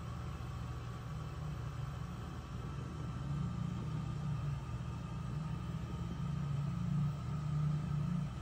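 Steady low background rumble, a little louder in the second half, with a faint steady high whine above it.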